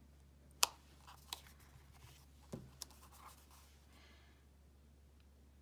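Clear acrylic stamp block being set down and pressed onto card stock: a few sharp clicks, the loudest under a second in, and a duller knock midway, with faint rubbing of paper.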